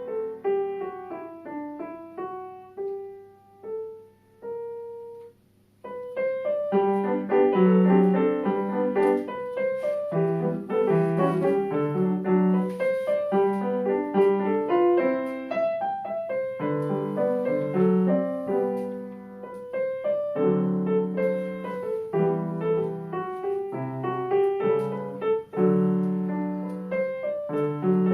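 Piano playing: a few quiet single notes, a brief pause about five seconds in, then a louder, busier passage with a steady run of notes over bass notes.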